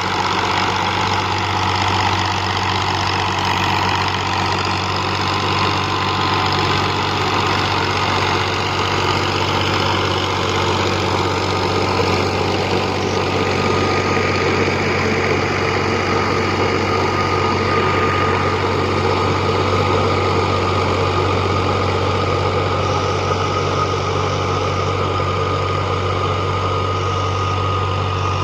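Al Ghazi 65 hp tractor's diesel engine running steadily at a constant speed, with a thin steady whine that becomes clearer about halfway through.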